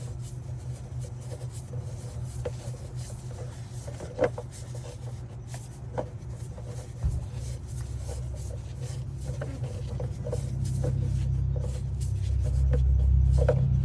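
Rubbing and light clicking of hands turning a diesel-filled spin-on fuel filter onto its head on a Cummins ISX. A steady low rumble runs underneath and grows louder over the last few seconds.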